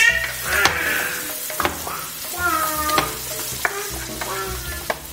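Mushrooms and sweet peppers sizzling in melted butter in a frying pan while being stirred with a wooden spatula, with sharp scrapes and knocks of the spatula against the pan. A voice in the background calls "Pasta! Pasta!" a few times.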